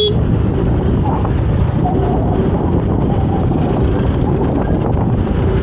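Wind rushing over a helmet-mounted camera microphone on a moving motorcycle, with the bike's engine and road traffic underneath as a steady, loud din.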